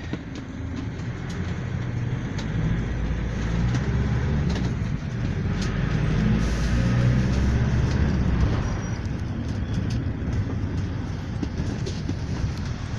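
Cabin noise inside a moving GAZelle Next minibus: engine and road rumble that swells over several seconds, then drops back about eight and a half seconds in.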